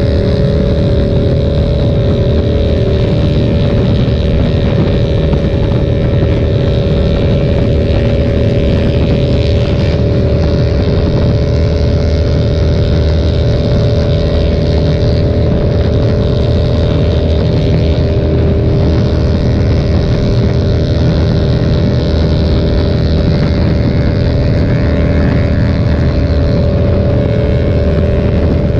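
KTM 1290 Super Duke's V-twin engine running steadily at a highway cruise of about 130 km/h, heard on board with wind rushing past.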